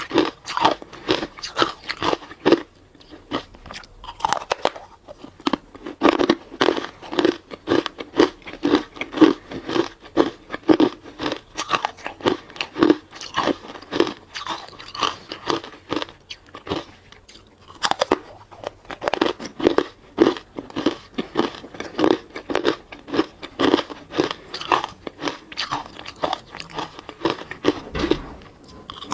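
Close-up biting and chewing of hard ice: a steady run of loud, crisp crunches at about two a second, easing briefly twice.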